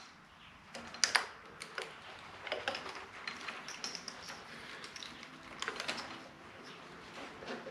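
Irregular light clicks, taps and rustling of wiring harness cables and small plastic connectors being handled and pushed through a motorcycle's front frame, with the sharpest clicks about a second in.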